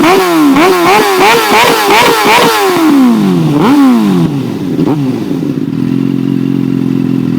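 Suzuki GSX-R600 K5's inline-four engine through a MIVV GP carbon exhaust, revved in quick throttle blips about three a second, then a few longer revs that fall away, settling to a steady idle about five and a half seconds in.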